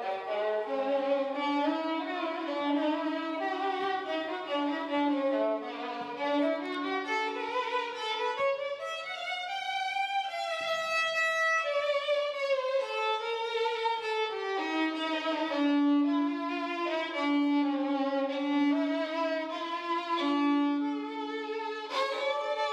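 Background violin music: a single melodic line that climbs to its highest notes about halfway through, then steps back down.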